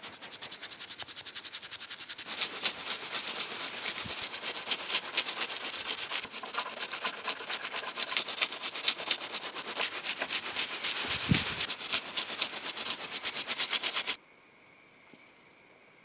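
Toothbrush scrubbed in rapid back-and-forth strokes over a wet metal mortise lock part, bristles scratching on the steel. The scrubbing stops abruptly about two seconds before the end.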